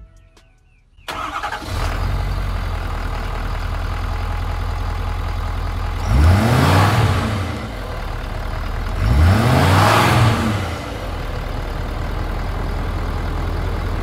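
Ford 6.7 L Power Stroke V8 turbodiesel idling through its stock air intake, revved twice, about six and nine seconds in, the pitch rising and falling each time. The sound cuts in abruptly about a second in.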